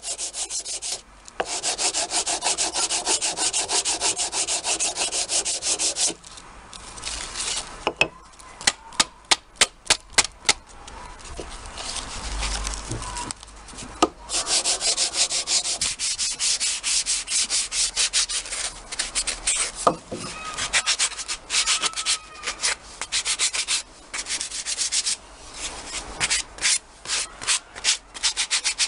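Sandpaper rubbed by hand over the edges of a wooden corbel in fast back-and-forth strokes, rounding off the sharp cut corners to give the wood an aged look. The strokes run in long quick runs, with a stretch of slower, separate scrapes in the middle.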